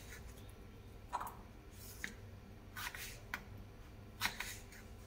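A kitchen knife slicing through a raw potato and meeting a wooden cutting board: a handful of short, faint cutting sounds about a second apart.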